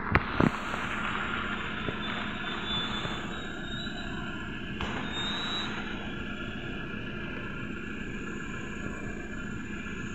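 Trolza-5275.05 Optima trolleybus standing at a stop, a steady low hum over street traffic noise. Two sharp knocks come about half a second in.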